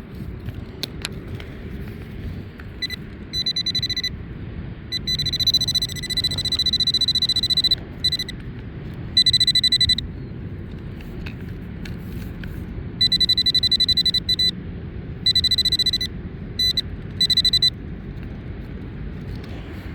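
Nokta Accupoint pinpointer sounding a high, rapidly pulsing beep in about eight bursts, some up to three seconds long, as it is swept over buried metal and signals the target. Wind rumbles on the microphone throughout.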